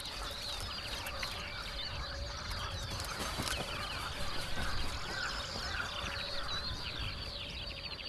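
A chorus of wild birds: many short calls overlapping and repeating without a break, with a faint steady tone underneath.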